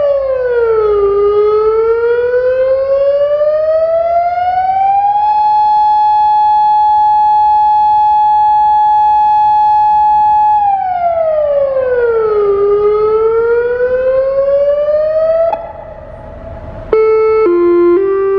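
Federal Signal Modulator electronic siren sounding an irregular wail: the tone drops, rises, holds steady for several seconds, drops and rises again, then cuts off abruptly partway through a rise. The uploader takes the erratic pattern for a malfunction of the siren. Synthesizer music starts near the end.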